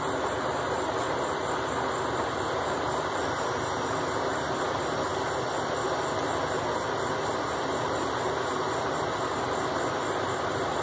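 Steady, even background hum of a running machine, with no distinct knocks or clicks.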